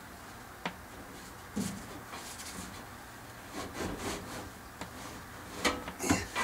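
Knocks, clunks and scraping as a furnace blower assembly is handled and slid into place in the furnace cabinet, with a sharp click about two-thirds of a second in and louder knocks near the end.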